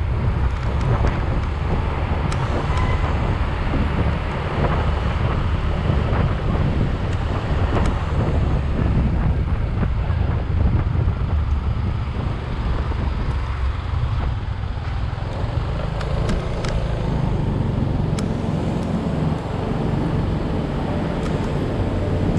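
Wind buffeting the microphone of a moving vehicle, over a steady low road rumble from the tyres.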